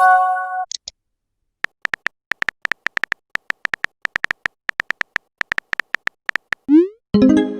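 Smartphone chat sound effects: a run of irregular keyboard-tap clicks, then a quick rising pop and a short chiming message-alert tone about seven seconds in; the same chime also sounds at the start.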